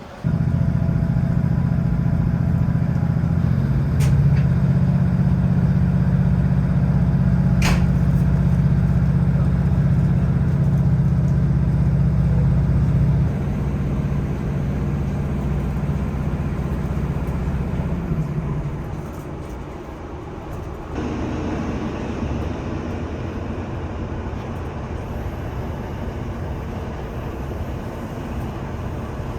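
Diesel engine of a ScotRail Class 156 diesel multiple unit running under the train, a steady low drone. It drops in level about halfway through and changes again later on, with a couple of sharp clicks early on.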